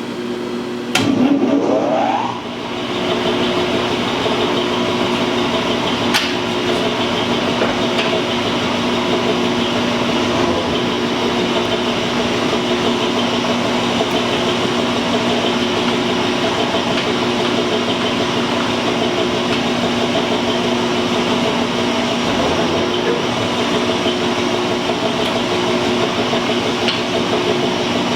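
Metal shaper switched on: its motor comes up to speed with a rising whine in the first couple of seconds, then the machine runs steadily with a constant hum and mechanical clatter as it strokes through a slow roughing pass on mild steel.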